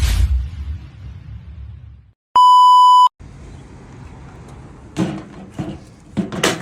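A loud, steady electronic bleep tone lasting under a second, cut in with dead silence either side. Before it a low rumble; after it a few sharp clicks and knocks.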